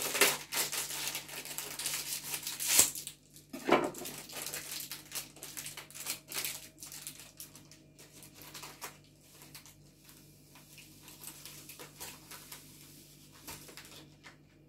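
Plastic bag crinkling and dried mint leaves rustling as crumbled mint is shaken from the bag into a large glass jar, in irregular crackles that are loudest in the first few seconds and lighter after.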